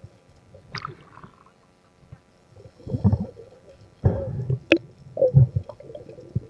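Underwater water movement and gurgling, picked up by a submerged camera, with low muffled thumps about three, four and five and a half seconds in and a single sharp click just before five seconds.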